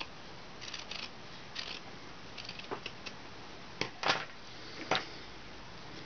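Small scissors snipping fabric in short, scattered cuts, with a few sharper, louder clicks about four and five seconds in.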